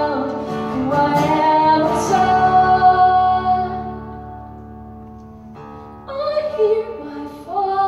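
Woman singing live to a strummed acoustic guitar. A long held note fades out about four seconds in, leaving the guitar quiet for a moment, and the singing comes back about two seconds later.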